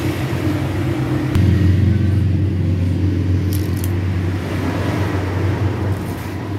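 An engine running steadily, a low drone that grows louder about a second and a half in.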